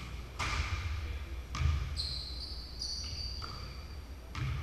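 Basketballs bouncing on a hardwood gym floor, a few separate thuds that echo in the big hall, with a high squeak about two seconds in.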